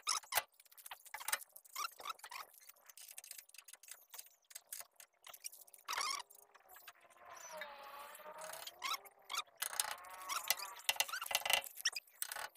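Hand-tool work on a steering tie rod end: irregular metallic clicks and clinks, with wavering squeaks, the longest about seven to nine seconds in.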